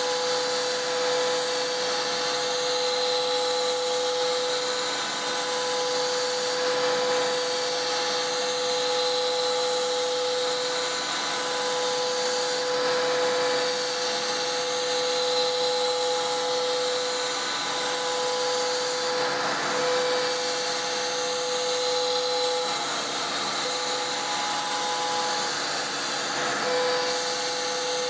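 CNC router's 11 hp Hiteco spindle driving a 3-flute bit at about 10,000 rpm, milling a pocket: a steady cutting whine with a strong high tone that breaks off briefly several times.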